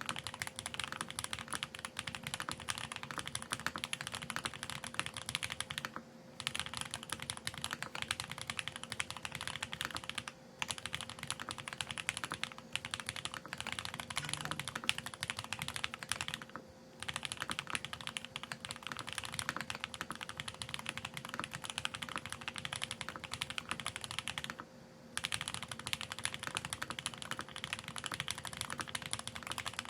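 Fast, continuous typing on a Geonworks F1-8X mechanical keyboard with lubed TTC Speed Silver v2 linear switches, an aluminium plate and GMK ABS keycaps. The typing breaks off for four short pauses.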